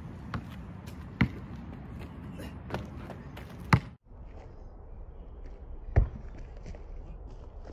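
Basketball bouncing on an asphalt court as it is dribbled: about five separate bounces at irregular spacing, the loudest shortly before the middle and about six seconds in, over a steady low background noise.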